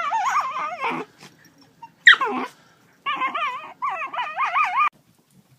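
A dog vocalizing in drawn-out whining howls whose pitch wobbles rapidly up and down. A short sharp yelp drops in pitch about two seconds in, and two more wavering howls follow before the dog falls silent near the end.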